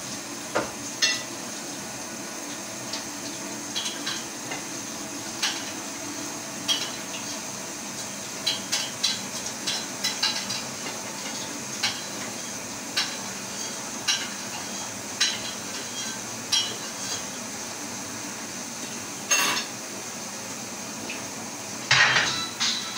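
Dishes and cutlery clinking and knocking now and then, as peas are served from a pan onto a plate, with two louder clatters late on.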